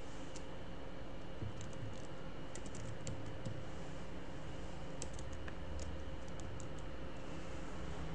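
Computer keyboard being typed on: irregular key clicks, some in quick runs, over a faint steady hum.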